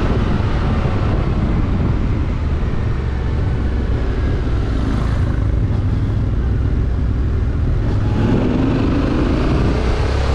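Yamaha Ténéré 700's parallel-twin engine, fitted with an Akrapovič exhaust, running steadily on the road, its note rising about eight seconds in as the bike accelerates.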